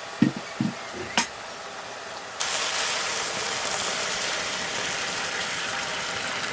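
A few short knocks, then about two and a half seconds in a loud steady sizzle starts suddenly, as food goes into hot oil and fries.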